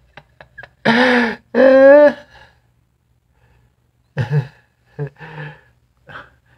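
A man laughing: two loud, drawn-out laughing sounds about a second in, then a few short, quiet breathy ones near the end.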